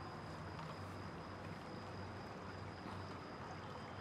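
Steady background noise: an even rush with a low hum underneath and a faint high whine, with no distinct events.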